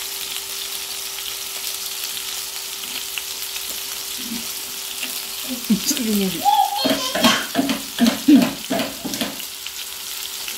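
Ground-meat burger patties sizzling steadily in hot oil in a frying pan. A voice sounds for a few seconds in the middle, louder than the sizzle.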